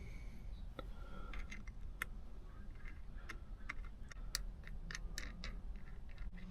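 Faint, irregular small clicks and ticks of the parts of an aftermarket shift knob being handled and turned, as its height-adjusting collar is worked by hand.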